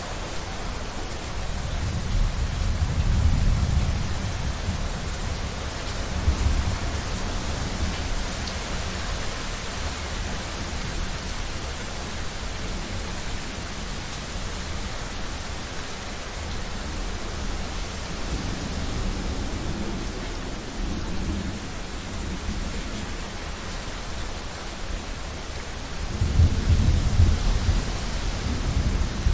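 Thunderstorm: steady rain hiss with low rolling thunder rumbling up several times, strongest about three seconds in and again near the end.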